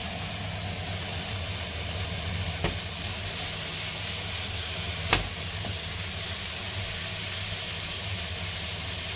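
Sliced onions, bell peppers and green olives sizzling in olive oil in a nonstick pan as a silicone spatula stirs them, with two sharp knocks, about two and a half and five seconds in, the second the louder.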